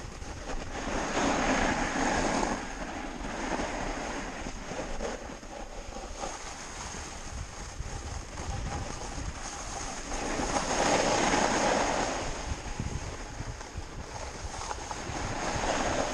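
Snowboard sliding down a groomed slope, the board scraping over the snow and swelling louder three times, with wind rushing on the microphone.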